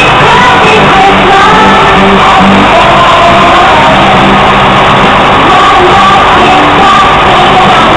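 Loud music with a singing voice, steady throughout.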